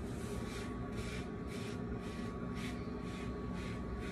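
Quiet room tone: a steady low hum with a faint thin tone, and soft faint hissing noises coming and going.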